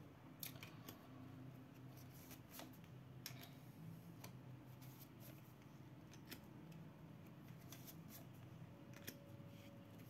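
Near silence: room tone with a dozen or so faint, irregular small clicks.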